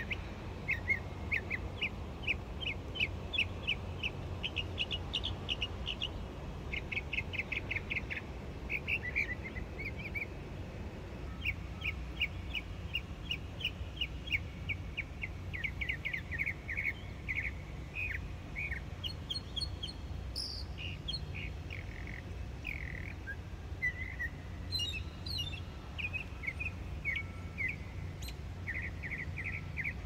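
Small birds chirping almost without pause in quick runs of short notes, with a few higher, sliding calls a little past the middle. A steady low rumble runs underneath.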